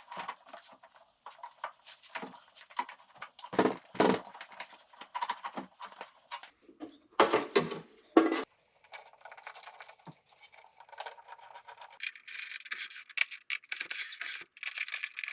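Hand work on a car door's metal parts: scattered clicks, clinks and rubbing, with a few heavier knocks in the middle and dense scratching and rubbing near the end.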